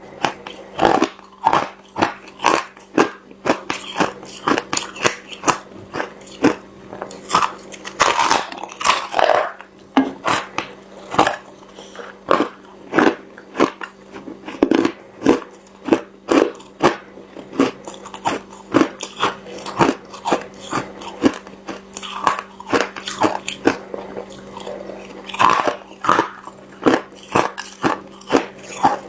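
Ice being bitten and chewed close to the microphone: a steady run of sharp crunches, about two a second, with louder, denser crunching about eight seconds in and again near the end.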